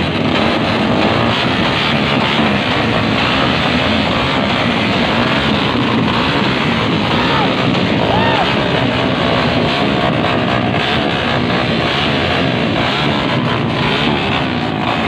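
Loud rock music playing over a dense, steady wash of crowd noise.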